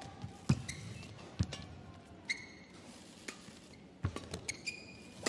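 Badminton rally: sharp racket hits on the shuttlecock about once a second, with brief high squeaks of players' shoes on the court mat as they lunge and push off.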